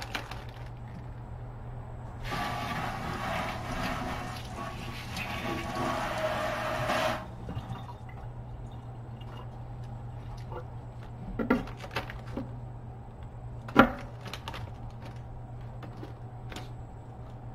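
Water running from a kitchen tap for about five seconds, then stopping suddenly. After it come a few sharp knocks.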